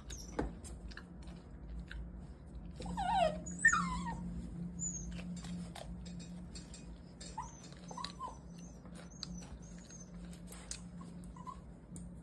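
Young mini goldendoodle whining with excitement over a toy. Two longer falling whines come about three and four seconds in, then short high squeaks.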